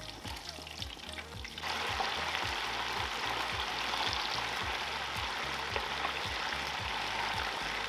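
Chicken wings lowered into 375 °F oil in a deep fryer, the oil sizzling. About one and a half seconds in the sizzle jumps to a loud, dense bubbling as the batch goes in, then holds steady.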